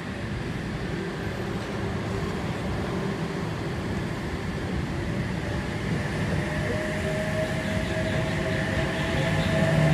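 Sydney Trains double-deck electric train moving along the platform, its rumble building steadily, with an electric motor whine coming in about two-thirds of the way through and edging up in pitch as the train gathers speed.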